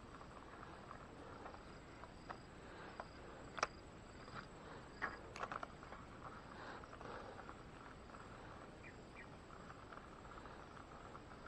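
Faint steady chirring of insects, with a handful of sharp clicks between about two and six seconds in, the loudest near four seconds.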